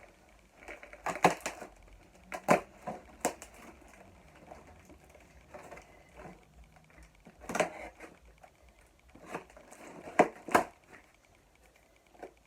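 Cardboard LEGO set box being opened and handled: a string of sharp crunches and clicks, some in quick pairs, with quiet rustling between them.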